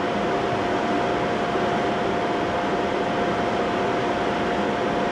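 Steady mechanical drone of running shop equipment, with a constant high-pitched whine held on one note throughout.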